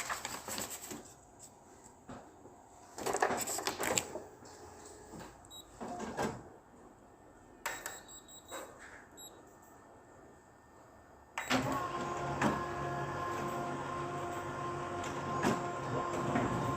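Photocopier: irregular clicks and clunks of its mechanism, then about eleven seconds in its motor starts and runs steadily with a hum.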